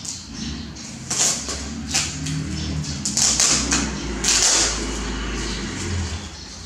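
Plastic packaging crinkling and rustling in irregular bursts as it is handled, over a low steady hum.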